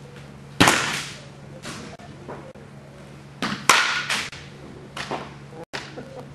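A softball bat striking a softball with sharp cracks, each ringing briefly. There is one about half a second in and another about three seconds later, the second led by a lighter knock.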